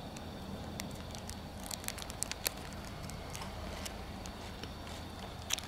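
Scattered small crackles and clicks of a clear plastic sweet wrapper being handled, over a steady low background hum.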